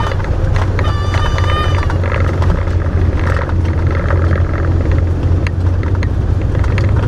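Cessna 172 Hawk XP's six-cylinder engine and propeller droning steadily as heard inside the cabin during the landing rollout, with a brief high whining tone about a second in and light rattles and clicks from the airframe toward the end.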